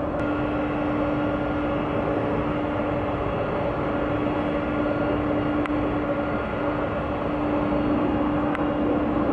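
Jet airliner's engines droning steadily as it climbs out overhead after takeoff, a constant rushing noise with a steady low hum.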